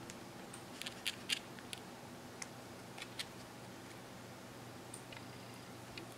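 Light clicks and taps of hands working in paper muffin cups on a baking tray, clustered in the first three seconds, over a steady low hum.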